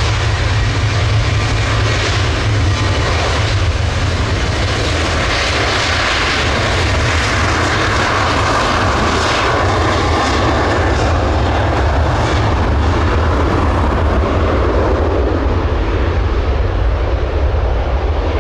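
Airliner engines roaring close by as a plane moves along the runway, a steady loud roar with a deep rumble that swells in the middle and eases toward the end.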